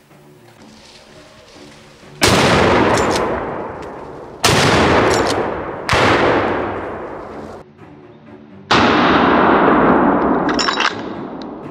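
Four hunting-rifle shots, irregularly spaced over about six seconds, each a sharp crack followed by a long rolling echo that dies away over a second or two.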